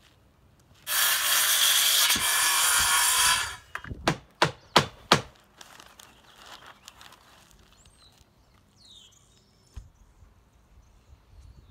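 A loud rushing, scraping noise lasting about two and a half seconds, then five sharp hammer blows in quick succession on an asphalt-shingle roof while a roof patch is nailed down.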